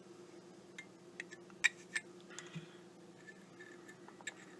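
Scattered light clicks and taps of small-object handling: a pen pushing melamine-foam pieces down into a Zippo lighter's metal insert. A faint steady hum runs underneath.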